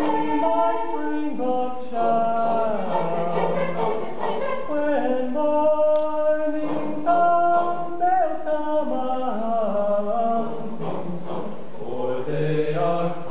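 Mixed high school concert choir singing in parts, holding chords and moving from note to note together.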